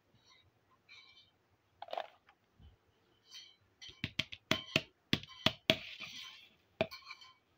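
Miniature hard-plastic toy pots, lids and a frying pan clicking and tapping as they are handled and set down on a tabletop. A quick run of sharp clicks comes in the second half, with a short scrape about six seconds in.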